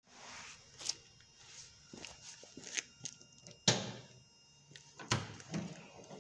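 Footsteps on a concrete floor with scattered knocks and clatter, a few sharp ones, the loudest a little before the middle.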